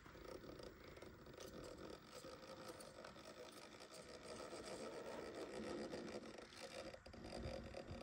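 RC rock crawler's small electric motor and geared drivetrain whirring under load as it climbs, with its tyres scraping on rock. The sound is faint and continuous, growing somewhat louder in the second half.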